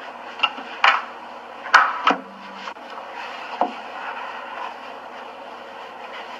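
Acoustic guitar being handled: a few sharp wooden knocks and bumps against the instrument, the loudest about two seconds in, followed by a low string briefly ringing.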